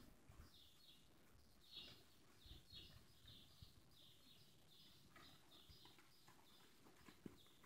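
Near silence, with faint, repeated chirps of small birds and soft, dull thuds of a horse's hooves and a person's footsteps on deep arena dirt.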